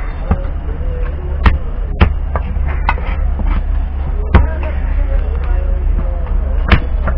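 Heavy cleaver chopping seer fish on a wooden log chopping block: several sharp chops at uneven intervals, the hardest about a second and a half, two, four and a half and near seven seconds in.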